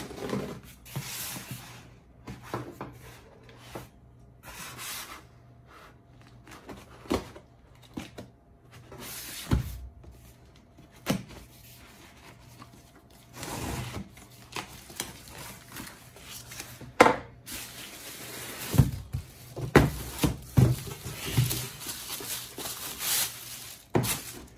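A cardboard parcel being cut open and unpacked: a blade slicing packing tape, with bursts of cardboard rubbing and scraping. Several sharp knocks are heard along the way, and a hard plastic carry case is lifted out.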